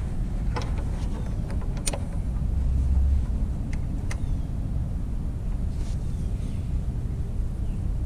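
A few light, sharp clicks of a metal-backed brake pad knocking against a motorcycle's Nissin front brake caliper as it is worked in and out by hand, over a steady low outdoor rumble.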